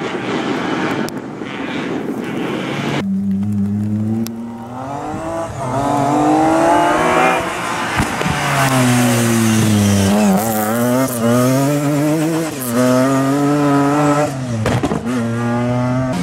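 A rally car rushing past for about three seconds, then, from a sudden change, a BMW E36 3 Series rally car's engine revving hard on the stage, its pitch climbing and dropping several times with gear changes and lifts as it approaches and passes.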